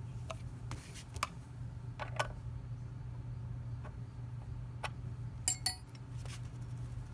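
Small metallic clicks and ticks as a motorcycle rear-view mirror is handled and screwed onto its handlebar mount, with two sharp, ringing metal clinks about five and a half seconds in. A steady low hum runs underneath.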